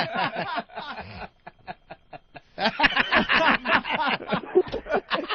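Men laughing and snickering, thinning to a few short snickers in the middle before the laughter picks up again.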